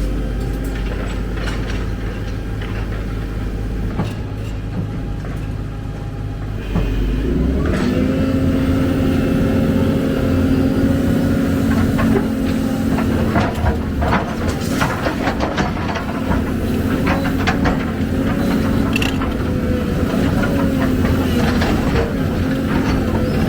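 Excavator's diesel engine running, then revving up about seven seconds in and holding at higher revs under load, with scattered metallic clanks and knocks.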